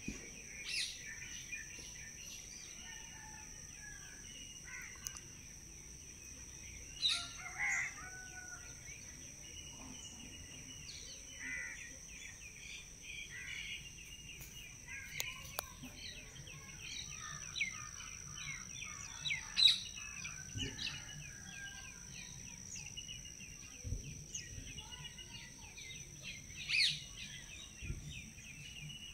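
Birds chirping and twittering in the background, many quick calls with a few louder ones, over a steady high-pitched whine.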